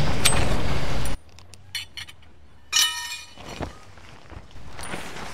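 A loud, steady rush of noise cuts off suddenly about a second in. After that come a few light clicks and, near the middle, a single bright metallic clink that rings briefly, from metal tent pegs knocking together as they are pulled and gathered.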